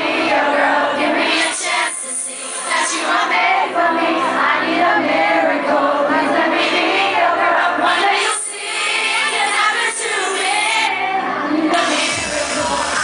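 Live Eurodance music with sung vocals over a light backing with almost no bass; the bass and beat come back in near the end.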